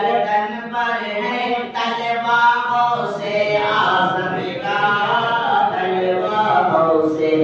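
A man's voice chanting in long, drawn-out melodic phrases, holding notes in the manner of devotional Islamic recitation through a microphone.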